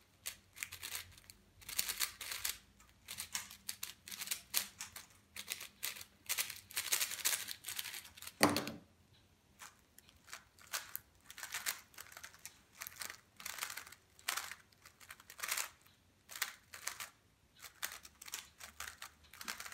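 Quick flurries of clicking and clacking from plastic speed cubes being turned by hand: first a Cosmic Wuque M 4x4, then a GAN 356 X 3x3. One louder knock comes about eight and a half seconds in, where the 4x4 is set down on the wooden table.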